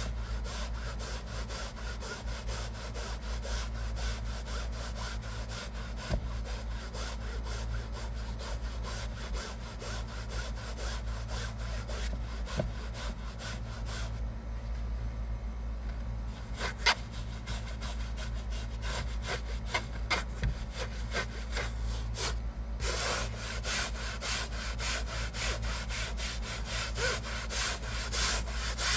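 Hand scrub brush scrubbing a fabric car seat in quick back-and-forth strokes, with a pause about halfway through and another brief one later, over a steady low hum.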